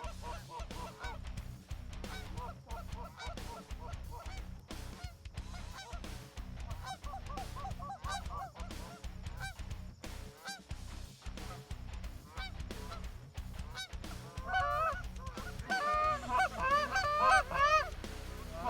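A flock of Canada geese honking, many short calls overlapping. The calls are faint at first and grow louder and denser for the last few seconds.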